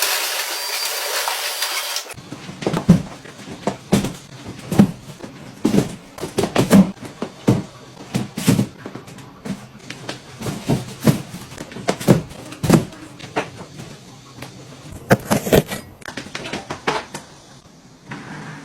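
A loud steady hiss that cuts off sharply about two seconds in, followed by irregular clicks and knocks of small objects being handled.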